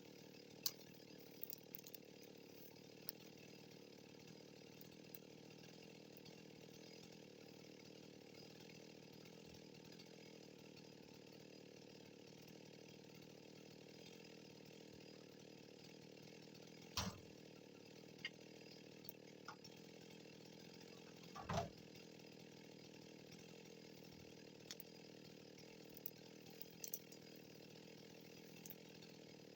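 Faint, steady hum of a chainsaw engine idling, with scattered light clicks and two sharper knocks past the middle.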